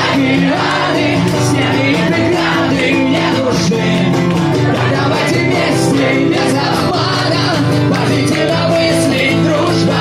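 Live rock band music: amplified acoustic guitar and drums with cymbals keeping a steady beat, and a singing voice.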